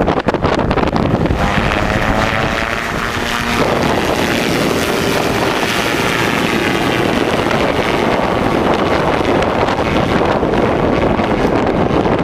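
Engine and pusher propeller of a Ken Brock KB-3 single-seat gyroplane droning as it flies past low, the note sweeping in pitch as it goes by. Wind buffets the microphone, most heavily in the first second or so.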